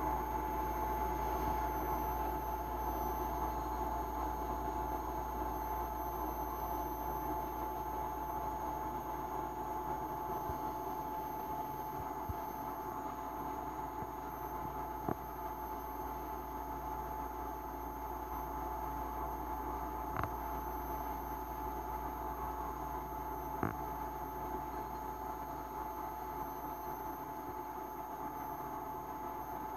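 Steady low hum and hiss of room tone with a faint constant whine, broken by a few faint isolated ticks.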